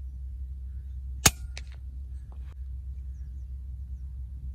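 Artemis P15 PCP air rifle firing a single shot about a second in: one sharp crack, followed by a few faint ticks, over a steady low rumble.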